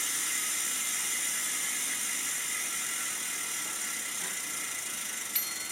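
Steady high hiss with a faint whir, easing slightly, and a light click near the end.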